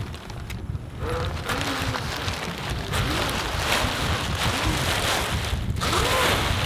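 Wind buffeting the microphone, with the stiff, crisp cloth of a new spinnaker rustling and the line running as the sail is hoisted up the mast in its sock.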